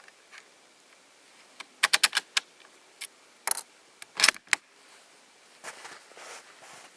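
Sharp metallic clicks and clacks of the rifle being handled: a quick run of several about two seconds in, a few more around the middle, then soft rustling.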